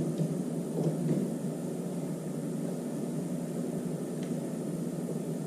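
Steady low noise, like a fan or air handling, with three faint light ticks about a second in and again past four seconds in.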